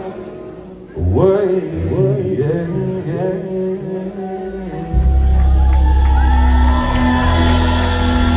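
Live country band ending a song: a male singer's drawn-out, wavering vocal run over the band, then about five seconds in the full band comes in loud on a long held final chord with heavy bass, and the crowd shouts and whoops.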